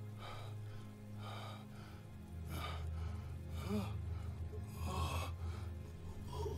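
A man gasping for breath, taking heavy, ragged breaths about once a second with a short groan in the middle, over a low droning film score.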